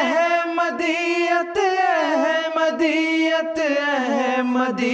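Unaccompanied singing of an Urdu devotional nazm, the voice drawing out long held notes that bend in pitch.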